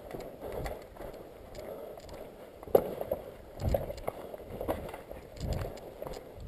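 Footsteps and rustling as a person moves through dry brush, branches and rubble, with low thumps about once a second and a single sharp click a little under three seconds in.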